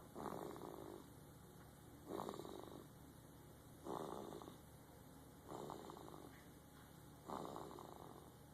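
Slow, even snoring: five rattly snores, one about every two seconds, each lasting under a second.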